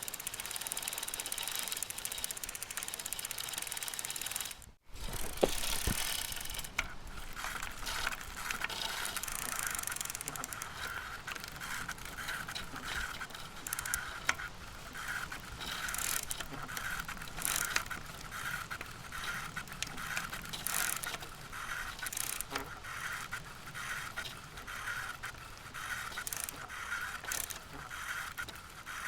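Bicycle being pedaled: chain and drivetrain running with an even, pulsing rhythm and scattered clicks. The sound breaks off briefly about five seconds in, then resumes.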